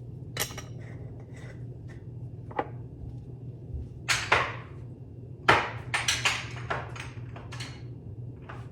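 Kitchen handling sounds while seasoning ground chicken: scattered knocks and clatters of containers and utensils and a few short scraping swishes, loudest about four and five and a half seconds in, over a steady low hum.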